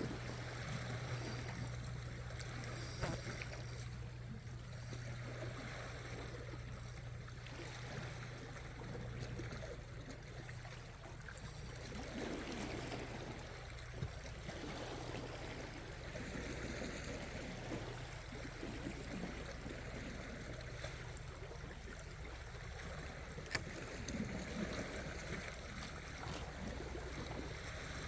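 Seawater lapping and sloshing against shore rocks in irregular surges, over a steady low hum. A couple of sharp little clicks stand out, one about halfway through and one near the end.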